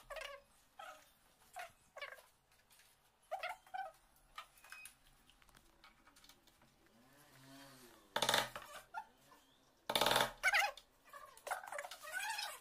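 Fast-forwarded sounds of fitting a mortise lock and lever handle: a string of short, high, squeaky chirps and clicks, with two loud bursts about eight and ten seconds in.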